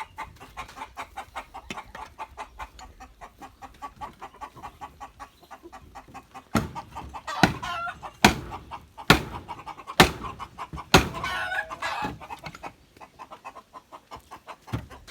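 Chickens clucking in quick, repeated calls, then a run of about six loud, sharp calls roughly a second apart in the middle, two of them drawn out into a wavering cry.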